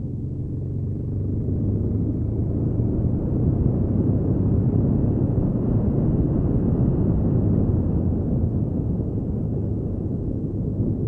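Honda Africa Twin XRV750's V-twin engine running at a steady road speed on a gravel road, heard as a low rumble mixed with tyre and wind noise, swelling a little after about two seconds.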